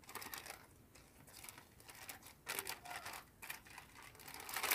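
Plastic packaging crinkling and rustling in short, irregular bursts as hands work slime in it, loudest near the end.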